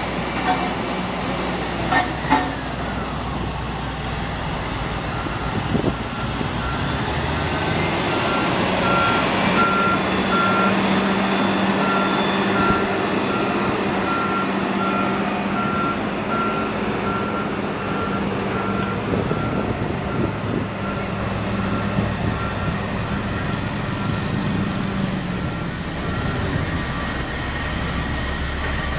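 Diesel engines of a Komatsu GD555 motor grader and a road roller running steadily, with a reversing alarm beeping at an even pace, one pitch, from about five seconds in until near the end. Two sharp knocks about two seconds in.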